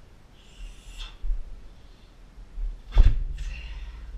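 A man's forceful breathing during a training drill, and about three seconds in a single heavy thud with a low ring dying away over about a second.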